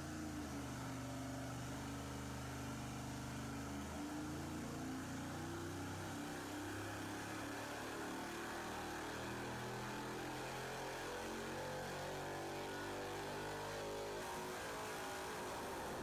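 Stock 4.8-litre LS (LR4) V8 running steadily on an engine dyno through long-tube headers with no cats. Its pitch shifts slightly a few times.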